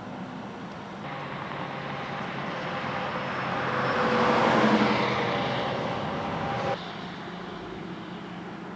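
Highway traffic noise: a vehicle passes, growing louder to a peak about halfway through and then fading, before the sound drops abruptly.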